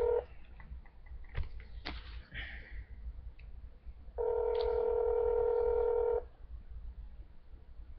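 Telephone ringback tone of an outgoing call: the called number is ringing and nobody answers. One two-second ring ends just after the start and another rings from about four to six seconds in, with a few light clicks and knocks between them.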